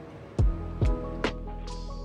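Background music with held chords. About half a second in, a beat comes in: deep kick-drum thumps and sharp snare-like hits.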